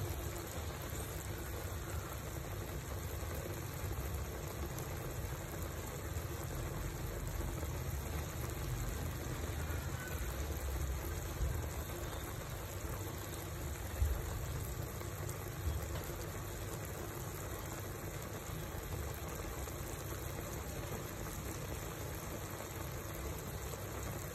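Pork trotters braising in a thick sauce in a pot, simmering with a steady bubbling hiss and a low rumble underneath. One brief knock about halfway through.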